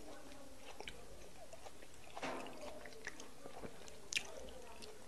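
Close-up wet chewing of soft, sticky fufu with egusi soup, with scattered sharp wet mouth clicks, the sharpest a little past four seconds in.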